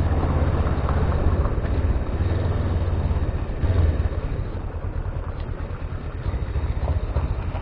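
Suzuki GS500's parallel-twin engine running as the motorcycle rides along a gravel road, mixed with tyre and wind noise; it eases off a little about halfway through.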